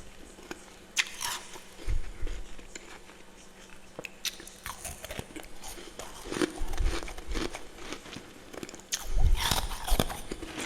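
Close-up biting and chewing of powdery freezer frost, a run of crisp crunches a second or two apart, the loudest bite near the end.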